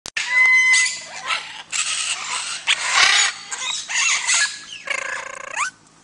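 Parrots screeching and squawking in a rapid run of harsh calls, with a held whistled note near the start and a few rising and falling whistles; the calls stop shortly before the end.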